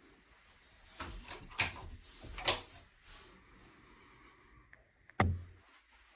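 A door being handled: rustling with two sharp clicks about a second apart, then a single sharp knock with a low thud near the end.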